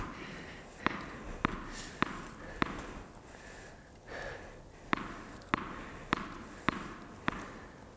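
Tennis ball bounced on a hard court by a player getting ready to serve, about one bounce every 0.6 s: four bounces, a pause of about two seconds, then five more.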